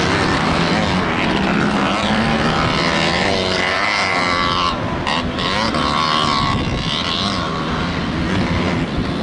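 Several vintage motocross bikes racing, their engines revving and overlapping, rising and falling in pitch.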